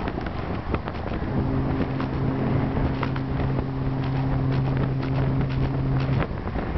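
Wind rushing over the microphone of a moving bicycle. About a second in, a foghorn sounds one long, low, steady blast of about five seconds, then stops.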